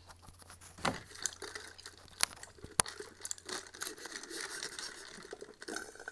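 Straw sucking at the last of the drink in a nearly empty McDonald's paper cup: a faint rasping slurp from about four seconds in, after a few sharp clicks and knocks as the cup is picked up.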